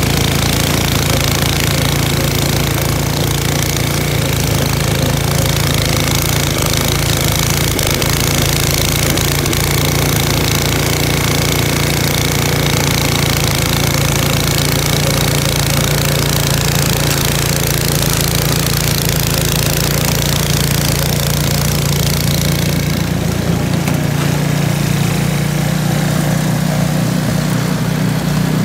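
Two-stage snow blower's small gasoline engine running steadily while clearing snow. About 23 seconds in the engine note rises slightly and the deep rumble and higher rushing noise fall away.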